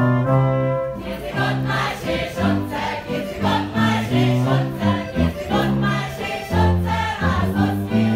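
Brass band folk music with a stepping bass line, joined about a second in by a group of voices singing along.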